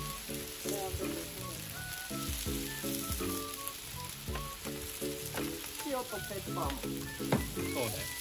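Chipolata and merguez sausages sizzling on a barbecue grill, a steady hiss with a few sharp pops near the end. Background music with short stepped notes plays over it.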